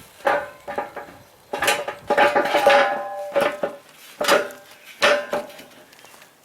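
Heavy steel tractor wheel parts clanking and ringing as the rear wheel is worked back into place on its hub: about seven knocks, the longest ring about two seconds in.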